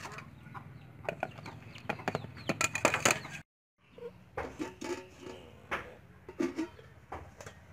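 A wire-mesh sieve clinking and tapping against a metal bowl during sifting, in quick clusters of sharp clicks. After a cut, an aluminium pot lid clinks against its pot, with short farmyard animal calls in between.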